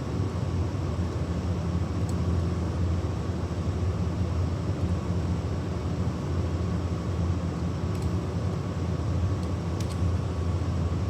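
Steady low mechanical hum from running machinery or ventilation, with a few faint light clicks, about two seconds, eight seconds and ten seconds in.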